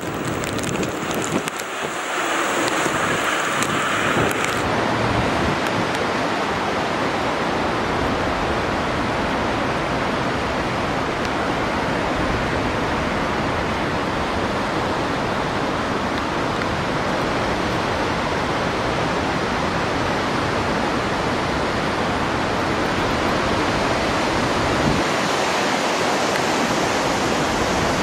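Steady rushing of strong storm wind buffeting the microphone, with rain in it. Near the end it turns thinner and hissier.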